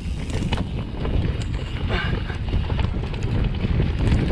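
Vitus Sommet 29 mountain bike riding fast down a dirt trail: wind rumbles on the chest-mounted GoPro's microphone, with scattered knocks and rattles from the tyres and bike over rough ground.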